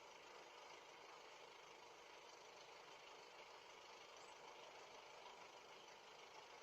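Near silence: only a faint steady hiss from the doorbell camera's microphone.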